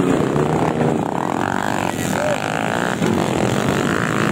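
Dirt-bike engines running, with one off-road motorcycle riding away along the dirt track.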